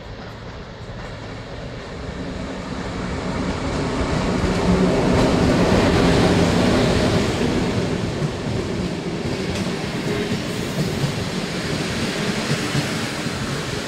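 PKP Intercity passenger train arriving, its locomotive and coaches rolling past close by. The rumble builds, is loudest as the locomotive goes by about five to seven seconds in, then holds steady as the coaches pass, with wheels clicking over the rail joints.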